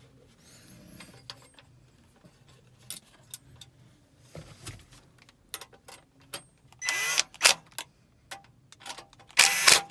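Metal clicks, knocks and clatter from a mounting bracket and its screws being handled and fitted onto a car audio head unit, with two louder rattling bursts near the end.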